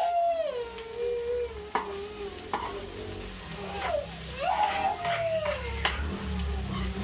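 Chicken and vegetables sizzling in hot oil in a frying pan while being stirred, with a few sharp clicks of the utensil against the pan. Twice, a drawn-out whining tone slides down in pitch over a second or two.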